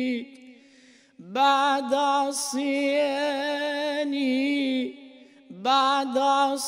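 Solo male voice singing an unaccompanied Arabic Islamic supplication (ibtihal), holding long melismatic notes with a wavering, ornamented pitch. The singing breaks off twice for a short breath, about a second in and near the end, each time sliding up into the next held note.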